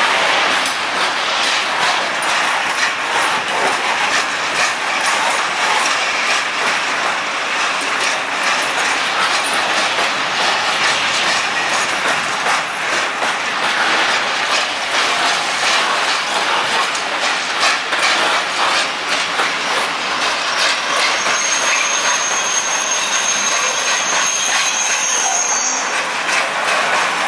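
Freight train of open-top coal wagons rolling past, wheels clattering steadily over rail joints and points. A thin, high wheel squeal is held for a few seconds near the end.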